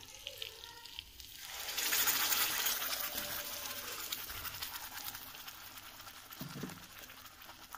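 Ground onion-tomato paste poured from a mixer-grinder jar into hot butter and cumin in a kadai. It hisses up sharply about a second and a half in, then settles into a sizzle that slowly fades.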